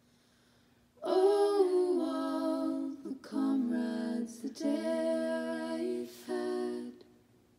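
A woman singing a slow melody unaccompanied, starting about a second in, in phrases of long held notes with short breaks between them.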